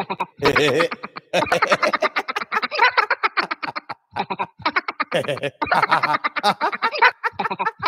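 A man laughing hard: long runs of rapid ha-ha pulses, broken by a few short pauses for breath.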